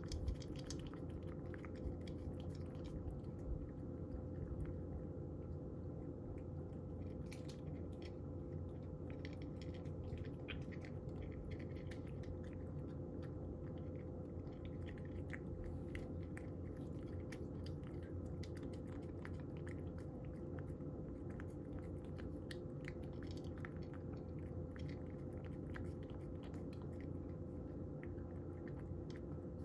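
A cat chewing and crunching dry kibble, with many small irregular crunches throughout, over a steady low hum.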